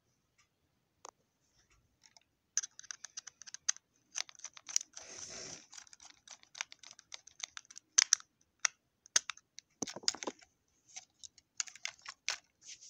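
Hard plastic clicks and taps of a Real Steam Percy toy engine being handled and turned over in the hands, its body and wheels knocking against fingers and each other in irregular quick runs. A short scraping rustle comes about five seconds in.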